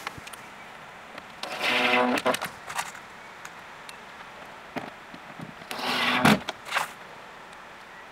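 Cordless drill driver running in two short bursts, about a second and a half in and again near six seconds, driving small screws to fix a tambour door track down into the panel, with a few light clicks between.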